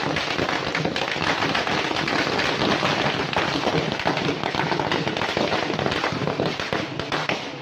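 Firecrackers going off in a dense, continuous rapid crackle.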